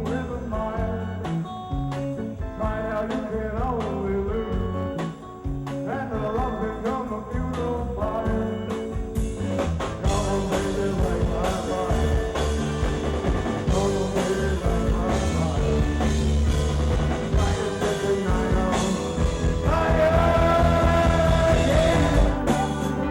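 1960s-style rock music with singing and guitar. The band fills out and grows louder about halfway through, with a long held note near the end.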